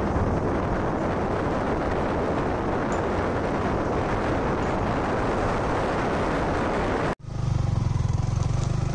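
Motorcycle riding along a rough dirt road: engine and road noise mixed with wind on the microphone. About seven seconds in, the sound cuts out for an instant and comes back as a steadier engine hum.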